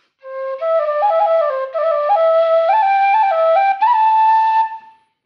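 Vasu khlui, a Thai vertical duct flute in the key of C, playing a run of notes that climbs step by step, with two brief breaks, ending on a held high note.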